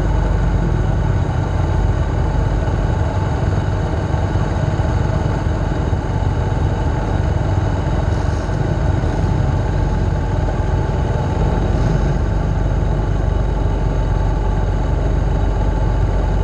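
A nearby engine idling steadily without revving.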